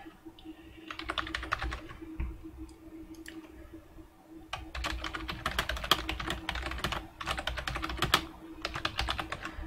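Typing on a computer keyboard: several quick runs of keystrokes with short pauses between them. A faint steady hum runs underneath.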